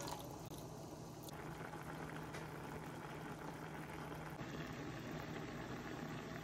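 Chicken pieces simmering in a frying pan of water and fat, the liquid bubbling steadily.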